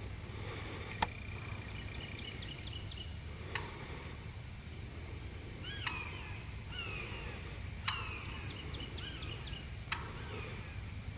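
Wild songbirds calling: sharp down-slurred calls about every two seconds, with runs of quick high chirps and slurred phrases between them, over a steady high tone and a low background rumble.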